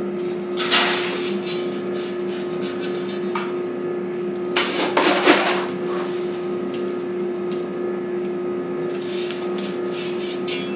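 Coal scraped up from a steel bucket with a small metal scoop and tossed into a boiler firebox: three bursts of scraping and rattling, about a second in, around five seconds in, and near the end. A steady hum runs underneath.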